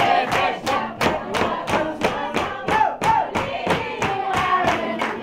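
A group of people singing together while clapping their hands in a steady beat, about three claps a second.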